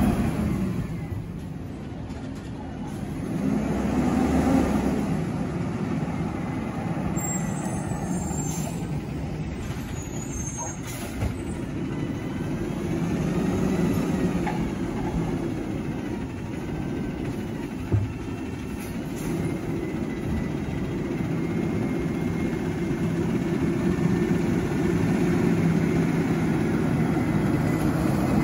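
Automated side-loader garbage truck's engine running as the truck drives along the street, with a steady low hum that grows louder near the end as the truck comes closer. A single sharp click sounds a little past halfway.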